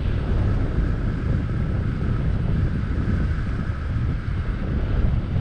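Wind buffeting the camera's microphone: a loud, uneven low rumble.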